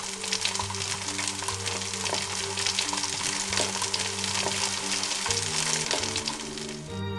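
Dense crackling sizzle of food frying in a hot pot, over background music with held low notes. The sizzle cuts off abruptly near the end.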